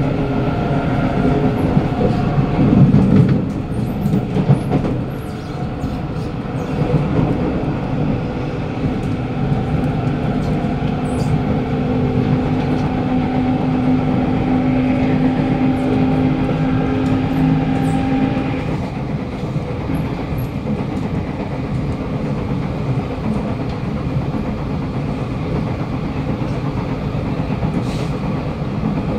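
Kawasaki Nippon Sharyo C751B metro train running at speed, heard from inside the carriage: a steady rumble and clatter of the wheels on the rails, with the steady whine of the traction motors. The motor whine stops about 19 seconds in and the train runs on with a quieter rumble.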